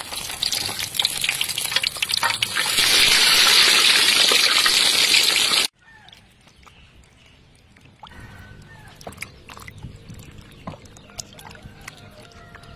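Whole fish frying in hot oil, sizzling loudly and getting louder about two seconds in, then cut off suddenly about halfway through. After that, quieter splashing of hands washing tomatoes and onion in a basin of water.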